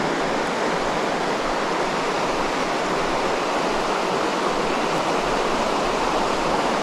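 Steady rush of a shallow, rocky trout stream running over stones and riffles.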